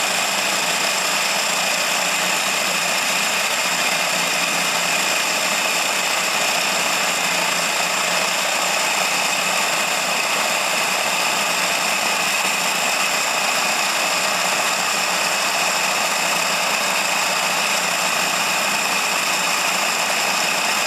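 A Harbor Freight vibratory tumbler motor drives a bucket with a shell-sorting plate, running steadily. Brass pistol cases rattle and jostle on the plate in a dense, even clatter, with a faint steady hum underneath.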